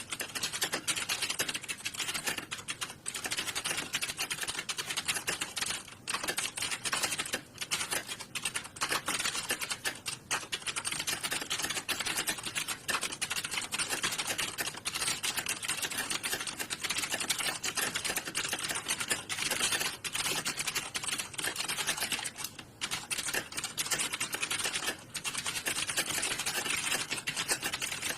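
Rapid typing on computer keyboards: a dense, continuous clatter of keystrokes with a few brief pauses.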